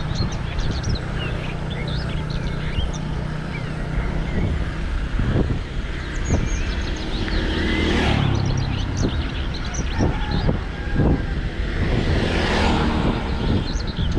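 Bicycle tyres rolling over a road, a steady low rumble with many short high chirps and a few sharp knocks scattered through it.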